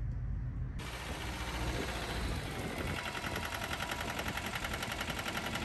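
John Deere tractor engine running, with rapid, even pulses in its sound.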